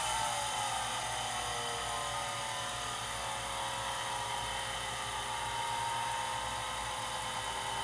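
Vintage watchmaker's lathe and its small electric drive motor running, the whine falling in pitch over the first couple of seconds as it settles to a slower speed, then turning steadily and quietly.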